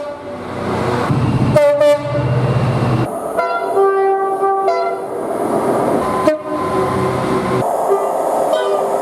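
Train horns sounding in a run of short, cut-together recordings over the rumble and hiss of moving trains: a brief blast about one and a half seconds in, a longer chord of several notes a few seconds in, and more horn notes through the last few seconds.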